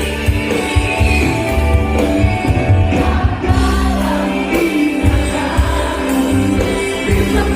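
Live band music with singing, over a heavy, steady bass.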